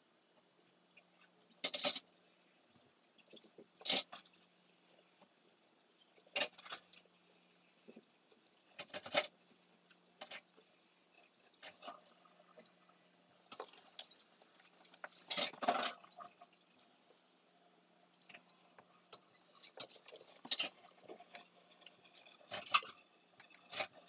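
Small tools and phone parts being handled at a repair bench: sharp, irregular clicks and taps, roughly one every one to three seconds.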